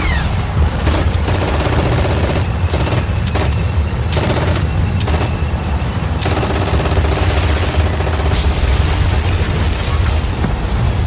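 Continuous rapid gunfire and bangs of blank-firing weapons and pyrotechnics in a staged battle, over a steady low rumble.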